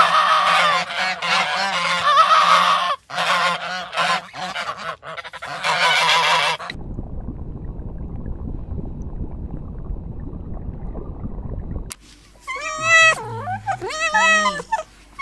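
A flock of farm waterfowl honking, many calls overlapping, for the first six or seven seconds. Then a steady low rumble with no calls for about five seconds, and a few separate, higher, wavering calls near the end.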